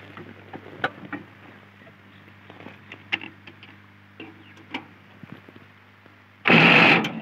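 Scattered clicks and knocks of a person climbing onto a tractor and handling its controls. About six and a half seconds in comes a loud half-second burst as the tractor's engine is started with its silencer removed, exhausting through the open pipe.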